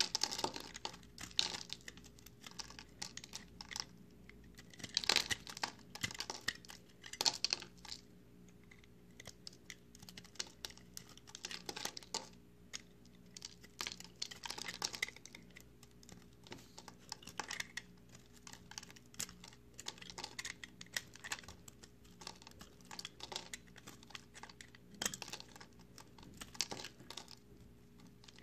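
Dry, crumbly recycled soap made of pressed soap chips crunching and crackling as a metal blade cuts and shaves through it. The crackles come in irregular clusters of crisp clicks as chunks and crumbs break away.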